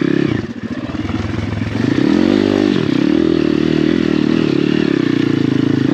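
Dirt bike engine heard close up from on board, running under load on a climb and revving up and down, with the pitch dropping and rising again about half a second in, around two seconds in, and near the end.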